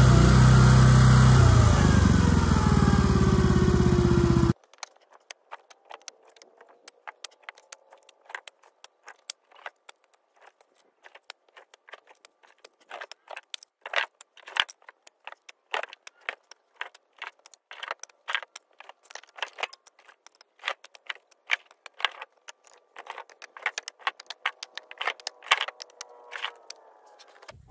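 A few seconds of loud music that cuts off abruptly, then split firewood pieces clacking and knocking against each other as they are tossed and set onto a woodpile, many sharp wood-on-wood knocks at an uneven pace over a faint steady engine hum.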